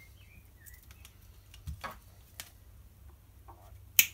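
A few light clicks and taps as a metal swivel and mono fishing line are handled, then a sharp snip near the end as the knot's tag end is cut with clippers.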